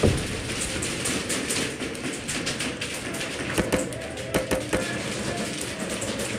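Scattered sharp taps and clicks of an indoor airsoft game, with a hard knock right at the start and quick clusters of clicks a little past the middle.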